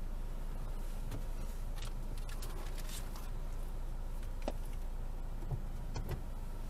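Steady low hum of a car idling, heard from inside the cabin, with scattered small clicks and rustles and a few short knocks from things being handled in the car.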